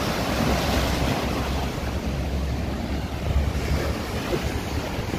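Sea waves breaking and washing against the boulders of a rock breakwater, with wind rumbling on the microphone.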